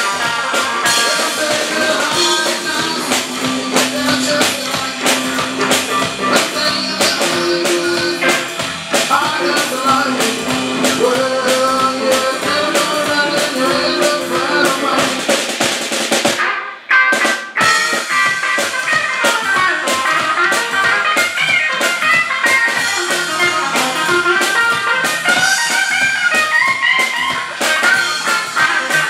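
Live band playing: a Gretsch hollow-body electric guitar plays lead lines with bent notes over a drum kit. A little past halfway the band stops for an instant, then comes straight back in.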